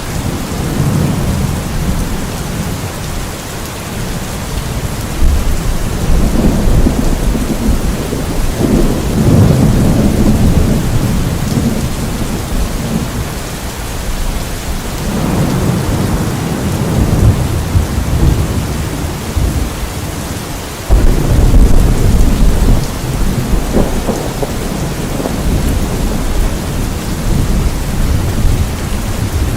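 Steady rain with repeated low, rolling thunder that swells and fades several times, and a sudden louder thunderclap about two-thirds of the way through.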